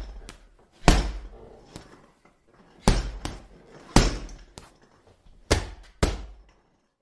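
Punches landing on a punching bag: about six solid thuds at uneven intervals of roughly a second, some followed closely by a lighter second hit. The last lands about six seconds in.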